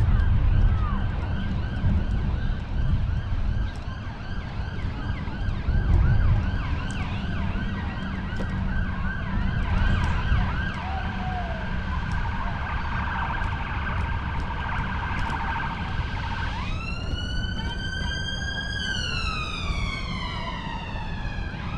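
Emergency vehicle siren in yelp mode, rapid up-and-down pitch sweeps, changing about sixteen seconds in to a slow wail that rises, holds, falls and starts to rise again. Wind rumble on the microphone runs underneath.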